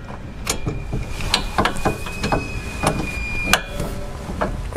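Irregular metallic clinks and knocks of a socket and ratchet being worked onto a rear wheel-bearing bolt in the suspension, with a thin high tone sounding through the middle.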